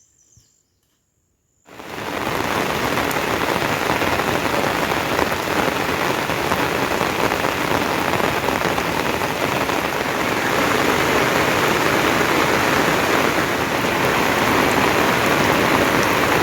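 Steady rain falling, a dense even hiss that fades in out of near silence about a second and a half in.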